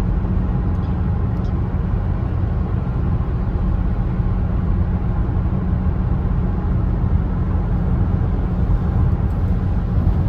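Steady engine and road rumble heard from inside a vehicle moving fast on the highway.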